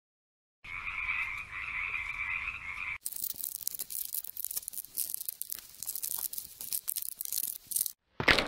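Frog croaking for about two seconds, followed by a dense crackling noise full of small clicks lasting about five seconds, and a sudden loud burst at the very end.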